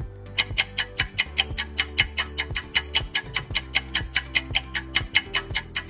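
Countdown timer tick sound effect, rapid even clicks at about five a second, over soft background music with held low notes.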